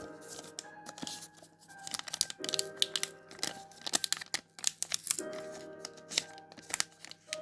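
Background music over the crinkling and tearing of a Pokémon card pack wrapper being ripped open, in several bouts of sharp crackles.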